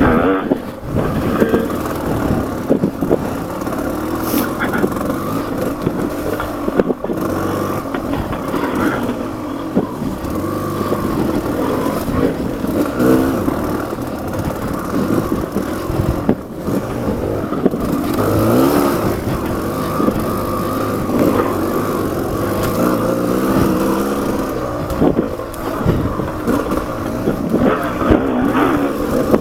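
Dirt bike engine revving up and down again and again while riding a rough trail, the throttle working on and off.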